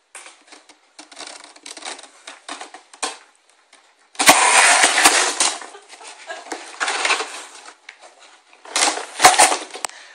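Cats scrabbling and clawing at a cardboard box: dry scratching and rustling in uneven bursts, faint at first, loudest from about four seconds in, with a second short loud burst near the end.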